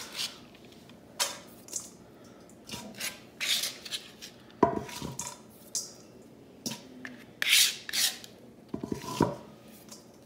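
Chef's knife scraping chopped cilantro across a plastic cutting board and into a stainless steel bowl, in a run of short, irregular scrapes. A few of the strokes start with a sharp tap that rings briefly, the metal bowl or blade being struck.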